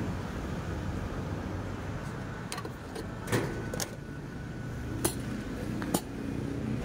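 Several sharp clicks and clunks, spread between about two and a half and six seconds in, as a fuel pump nozzle is taken out of the tank and hung back in its holder on the pump, over a steady low rumble.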